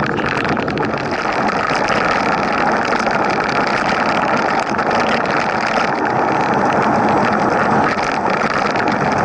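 Steady rushing noise of a mountain bike ride: wind on the camera's microphone mixed with tyres rolling over the ground.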